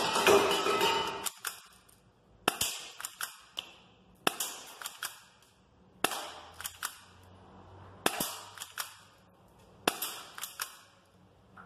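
Crosman GFM311 Colt 1911 full-metal spring airsoft pistol being fired shot after shot, about six times, roughly every two seconds. Each shot is a quick cluster of sharp metallic clicks and snaps, and the slide is pulled back by hand to cock the spring before each shot.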